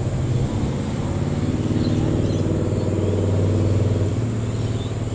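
An engine running steadily with a low hum that swells slightly and then eases, as a motor vehicle does when driving past.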